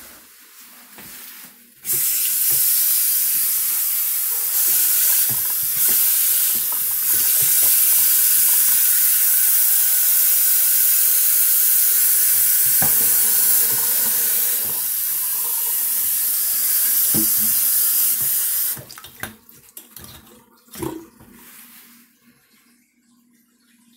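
Faucet turned on about two seconds in, with water running steadily into a newly installed sink, then shut off near the end, followed by a few light knocks.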